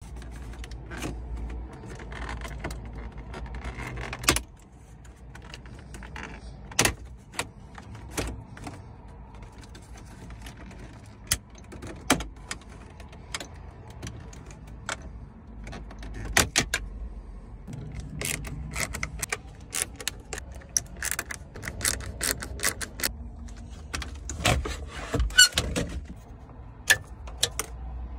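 Repeated sharp clicks, snaps and knocks of plastic dashboard trim and a metal-cased car radio being pried and pulled out of a 2006 Volkswagen Touran's centre console, loosest at first and coming thick and fast later on.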